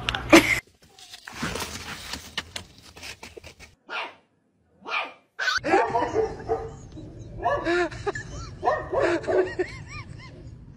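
A dog making a rapid run of short barks and whining calls, each call rising and falling in pitch. Before that, a few seconds of scuffling and bumping noise.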